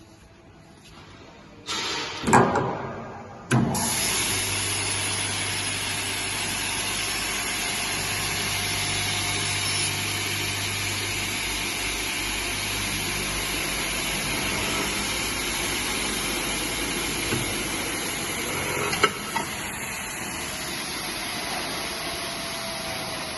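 Eisele Norma TU/4 double miter saw being powered up: a loud start about two seconds in and another about a second and a half later, then the saw motors run steadily with a low hum and a hiss. A couple of sharp clicks come near the end.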